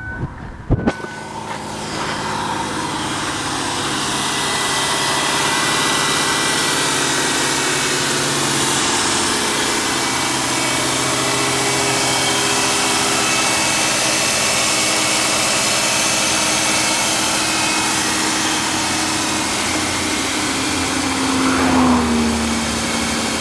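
2004 Ford Taurus 3.0-litre V6 running steadily, heard from the open engine bay, growing louder over the first few seconds. A sharp thump comes under a second in, and a brief tone falls slightly in pitch near the end.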